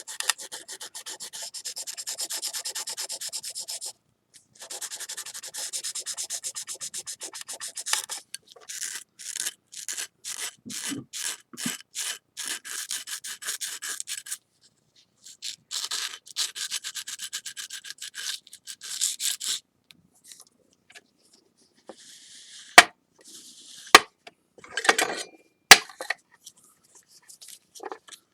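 Wet sandpaper rubbing back and forth over a ceramic plate, wearing away excess urushi lacquer around a kintsugi repair. It comes in runs of quick strokes, slows to about two strokes a second in the middle, and stops about twenty seconds in. A few sharp knocks and light clicks follow.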